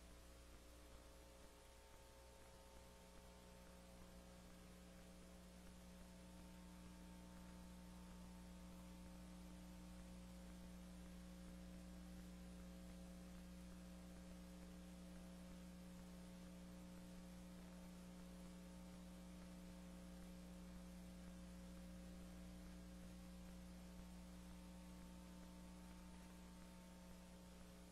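Near silence with a faint, steady electrical hum made of several fixed tones.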